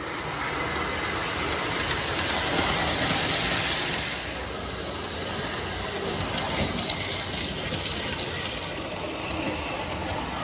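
O gauge model train, a Williams CSX diesel locomotive pulling tank cars, running on three-rail tubular track: a steady rumble of motor and wheels with scattered clicks as the wheels cross rail joints. It is loudest a few seconds in, as the train passes close.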